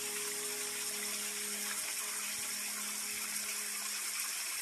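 Steady rush of falling water trickling down a rock face into the lake, with soft background music holding a low chord that fades out near the end.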